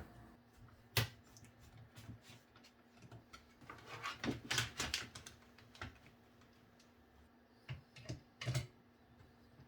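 Scattered clicks and light knocks of PC case parts being handled and fitted together: one sharp click about a second in, a quick cluster around four to five seconds in, and a few more knocks near the end.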